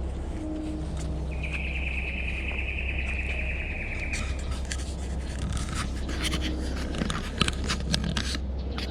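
Dry leaf litter and brush crackling and scraping under footsteps through the second half, a quick run of sharp crackles. Before that, a high buzzing call from a creature lasts about three seconds and falls slightly in pitch. A steady low rumble runs underneath.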